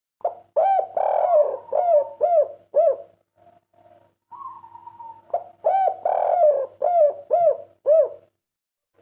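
Spotted dove (derkuku, tekukur) cooing: two song phrases of the 'kuk 3' type, each a rhythmic run of short rising-and-falling coos, the second starting about halfway through.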